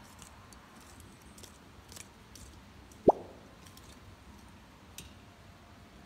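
Faint scattered clicks and scrapes of hand work in a garden bed, with one sharp, loud thump about halfway through.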